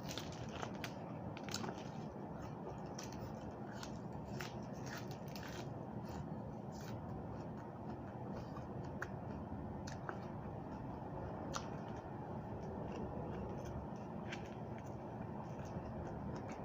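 Close-up chewing of raw vegetables: many small, irregular crisp clicks and crunches over a steady background hiss.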